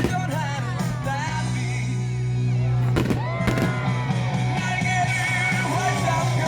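Rock song with singing over loudspeakers, a steady bass under the voice. Sharp bangs of fireworks bursting cut through it at the start and twice about three seconds in.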